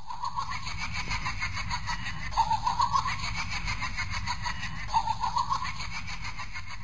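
Two bursts of choppy laughter over a steady low rumbling noise, the laughter loudest about two and a half and five seconds in.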